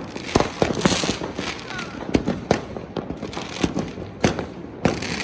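Fireworks and firecrackers going off continuously: a dense crackle of small pops with louder single bangs about once a second, at irregular intervals.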